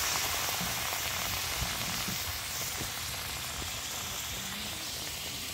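Food frying in hot oil: a steady sizzle that eases off slightly over the seconds.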